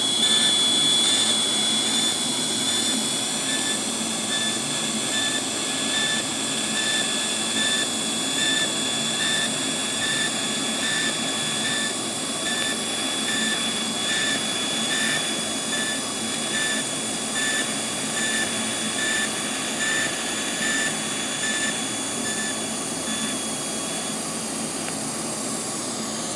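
TIG welding arc running steadily on a roll-cage tube joint: an even hissing buzz with a high whine that pulses regularly, about one and a half times a second, stopping about 24 seconds in.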